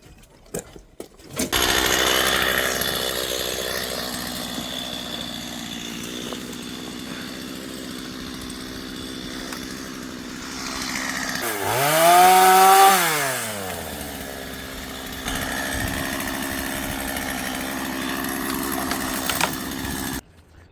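Gas chainsaw running for cutting up fallen elm wood, revving up and back down once about twelve seconds in, its loudest point. It starts suddenly and stops just before the end.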